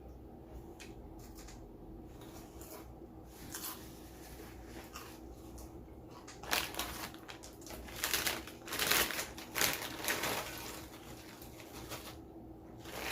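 Close-up eating sounds: quiet chewing and mouth clicks for several seconds, then from about six and a half seconds in, a few seconds of loud, irregular crunching and rustling.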